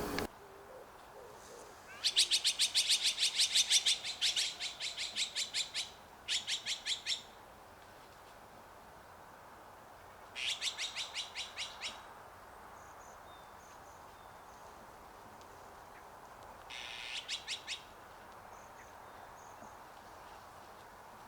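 Azure-winged magpies giving harsh, rapid chattering calls in several bursts: one long run of about five seconds, then shorter runs of about a second each, with faint high chirps in between.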